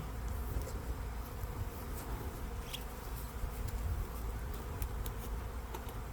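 Honey bees buzzing in a dense, steady swarm hum around an open hive, with a low rumble underneath and scattered faint ticks.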